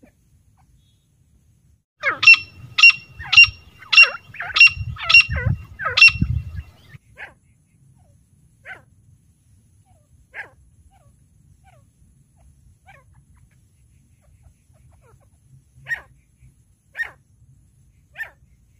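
Female grey francolins calling: a quick run of about seven loud calls about half a second apart, then single, softer calls scattered through the rest.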